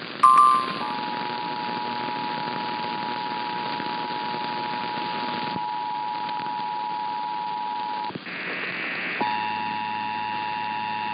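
Emergency Alert System two-tone attention signal, two steady tones just under 1 kHz sounding together over hissy radio reception; this is the alert tone that comes before a warning message. It breaks off about eight seconds in, a second of higher-pitched noise follows, and the two-tone signal starts again, harsher.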